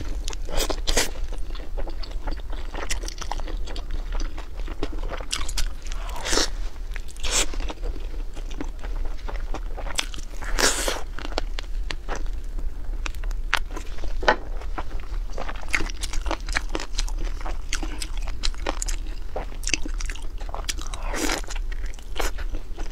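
Close-up bites and chewing of sauce-glazed fried chicken wings: irregular crunching and crackling strokes as the skin and meat are bitten off and chewed, over a steady low hum.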